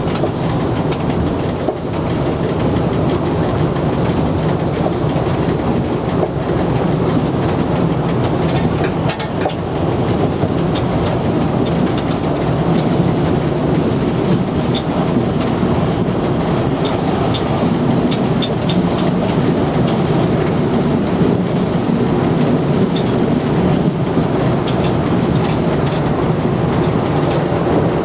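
Cab noise of an SNCF Z 5300 electric multiple unit running at speed: a steady rumble of wheels on rail, with a few sharp clicks and rattles scattered through it.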